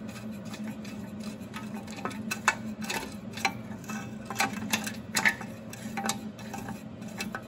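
Socket ratchet clicking in short, irregular strokes as it loosens a muffler support bolt, with a faint steady low hum underneath.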